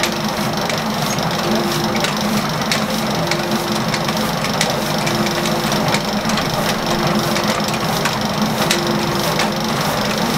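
A machine running steadily with a low hum, a tone that cuts in and out every second or two, and a constant patter of light clicks and rattles.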